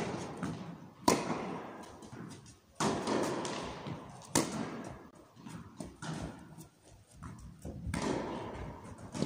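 Tennis ball struck back and forth with rackets in a rally, sharp pops every one to two seconds with bounces and footwork between, echoing in a large indoor hall.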